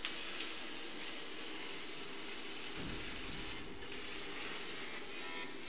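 Electric welding arc crackling steadily, a dense fast crackle.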